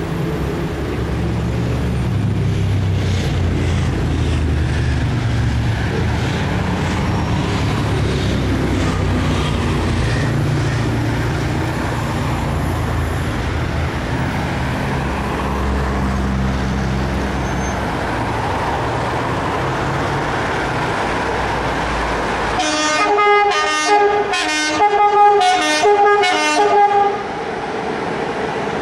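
Electric locomotive's multi-tone horn sounding a quick string of short blasts, after a long stretch of steady low rumble; another blast starts near the end.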